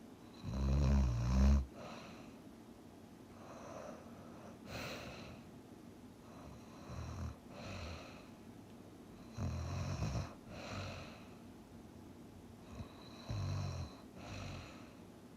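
A person asleep and snoring: irregular, rough, low-pitched snores on the breath, with quieter airy breathing between them. The loudest snore comes about half a second in.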